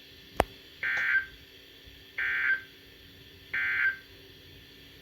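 Emergency Alert System end-of-message data bursts from a NOAA Weather Radio: three short digital tone bursts about a second apart, marking the end of the alert. A single sharp click comes just before the first burst.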